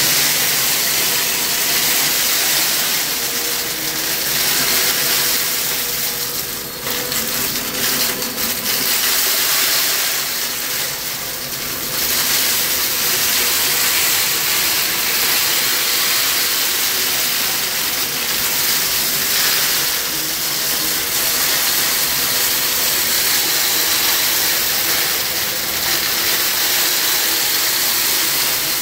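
Kenmore upright vacuum cleaner running steadily, picking up wood chips from carpet, with the chips rattling and crackling as they are sucked into the bin.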